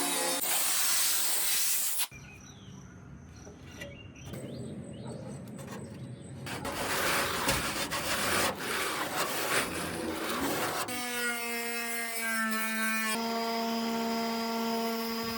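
Short cut-together clips of hand work on the pedal car's metal body: scraping and rubbing, as of sanding or filing. In the last few seconds there is a steady whine on a fixed pitch.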